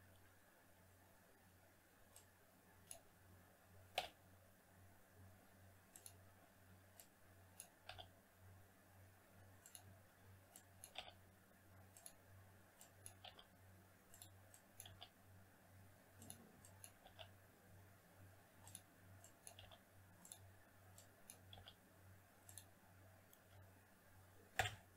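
Faint, scattered clicks of a computer mouse and keyboard keys, with a louder click about four seconds in and another near the end, over a low steady hum.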